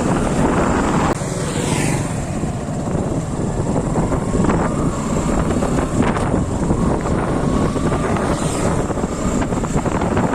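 Motorcycle riding on the road: a steady engine and road noise mixed with wind buffeting the microphone.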